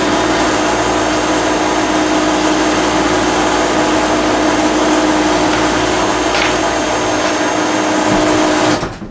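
Electric motor of a car-transporter trailer's loading gear running steadily under a corded remote, a constant hum with a steady tone, cutting off suddenly near the end.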